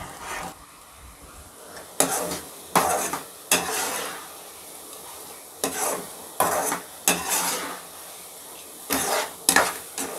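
Steel spatula stirring and scraping a thick milk-and-coconut paste against the bottom of a nonstick pan, in irregular strokes, as the mixture is cooked down until thick.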